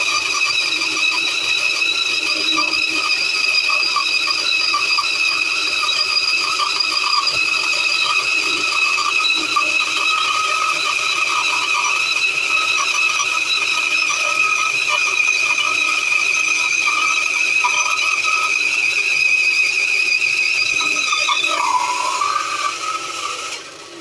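Titan bandsaw running with a steady high-pitched whine, winding down and going quiet about two seconds before the end.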